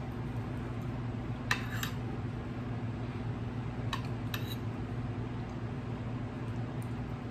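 A metal spoon clinking and scraping against a plate, a few sharp clinks about a second and a half in and again around four seconds, over a steady low hum.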